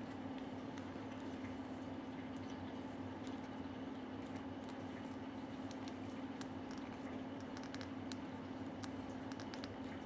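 Faint scattered ticks and rustles of hands twisting electrical wire leads together, over a steady low hum.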